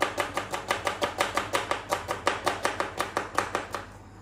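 Kitchen knife rapidly chopping red onion on a cutting board, an even run of about six or seven strokes a second that stops shortly before the end.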